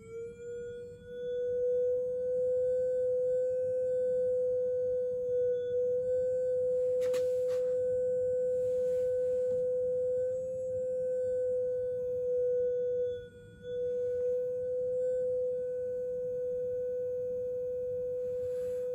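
Loudspeaker driving an air resonance tube with a steady electronic tone. The pitch glides up to about 500 Hz in the first second or so and then holds. As it settles there the tone grows much louder: the tube is resonating in its second mode (n = 2). There is a short click about seven seconds in and a brief drop in level near thirteen seconds.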